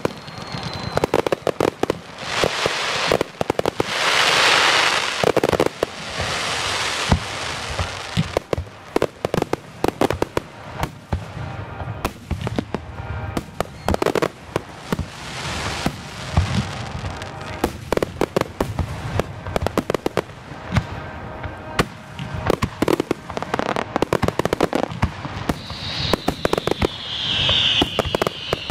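Aerial fireworks display: a steady run of sharp shell bursts and bangs, with stretches of dense crackling. Near the end a whistle falls in pitch.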